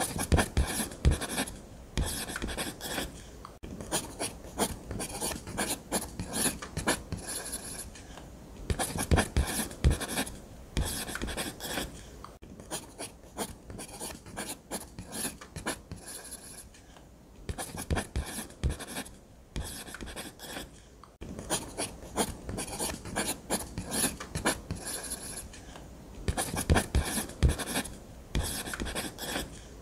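Blue Nataraj ballpoint pen drawing on paper: scratchy strokes in quick runs, broken by short pauses, with a few soft knocks.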